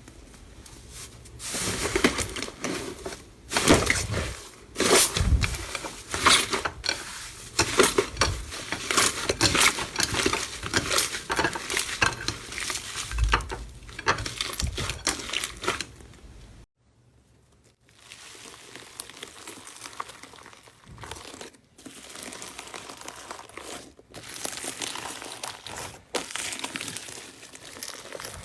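Slime being squeezed, poked and stretched by hand, making dense crackling and popping. The crackling stops abruptly about halfway through, then carries on more quietly.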